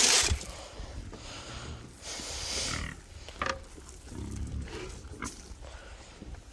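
Pigs grunting in several short bouts, with a couple of sharp knocks in between.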